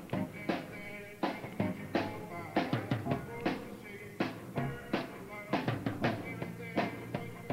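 Recorded music with a steady drum beat, about two beats a second, under pitched instrumental notes.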